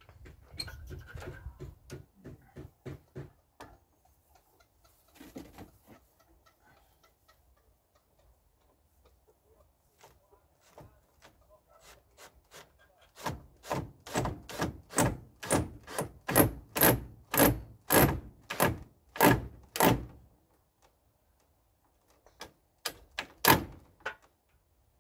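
Repeated hammer blows, about two a second for some seven seconds, then a short run of a few more near the end, as a weather vane pole is fixed to the top of a shed post. Lighter, quicker knocks come in the first few seconds.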